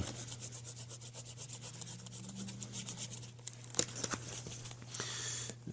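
Rapid back-and-forth rubbing strokes as Eternabond seam tape is pressed and smoothed down on the RV roof, working the air out from around the ladder's anchor plate. The strokes slow and fade about two-thirds of the way in.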